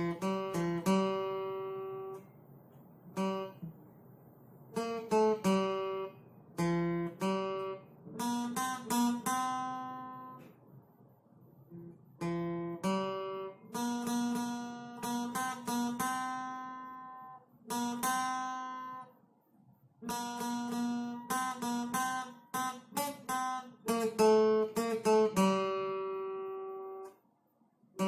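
Acoustic guitar playing a slow melody, notes plucked one at a time and left to ring, in phrases separated by short pauses.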